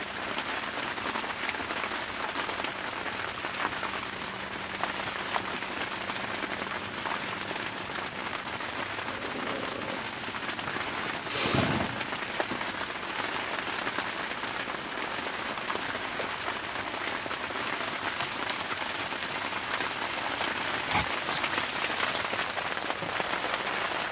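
Heavy rain hitting the fabric of an ice-fishing shelter, a dense steady hiss of drops with a brief louder rush about halfway through.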